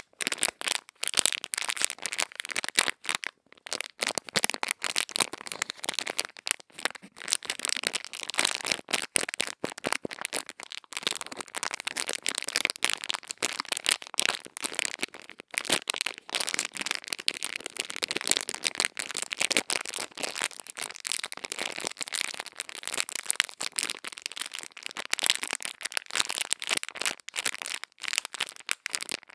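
ASMR ear-cleaning sounds: a dense, continuous crisp crackling and scratching close on the microphone, rising and falling in strength but never pausing.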